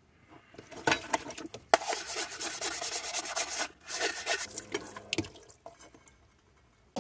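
Dishes scrubbed by hand in a wash basin: a scrubber rasping against a metal camp pan in quick strokes, with a few knocks of plates and utensils. It goes quiet for the last second or so.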